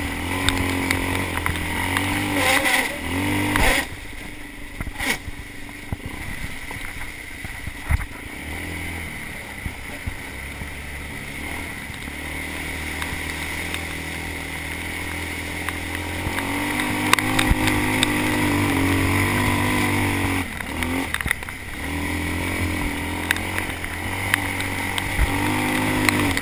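Quad bike engine running hard along a muddy dirt trail, revs rising and falling with the throttle. It eases to lower revs about four seconds in and picks up again past the middle. Knocks and rattles come from the machine over the bumps.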